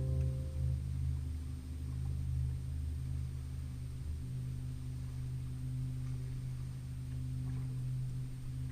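Boat motor running steadily, a low, even hum.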